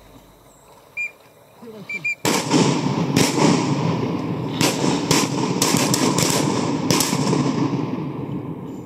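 Volley of shotgun blasts from several duck hunters shooting at birds overhead: a sudden first shot about two seconds in, then about half a dozen more over the next five seconds, over a loud continuous wash of noise that fades near the end.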